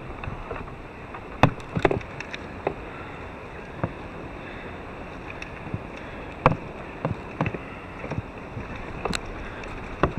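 Irregular sharp knocks and clicks as the angler handles gear and fish on a fishing kayak, loudest about a second and a half in, midway and near the end, over a steady hiss of wind and water.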